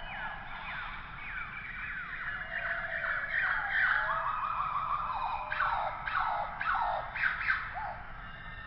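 A chorus of many animals calling at once: overlapping high calls that mostly slide down in pitch. The calls thicken and grow louder through the middle, with a run of short, quick calls near the end.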